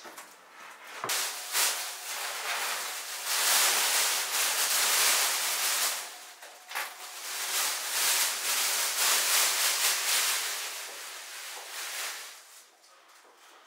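Used plastic masking film and tape crinkling and rustling as it is gathered up and stuffed into a plastic rubbish bag, in loud waves that start about a second in and fade near the end.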